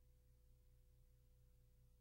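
Near silence: a faint, steady low hum of room tone.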